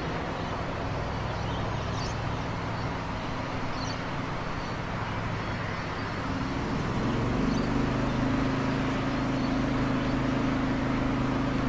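Steady engine hum over a background rush, with a few faint high chirps. About seven seconds in, a new, slightly higher engine tone comes in and the sound grows a little louder.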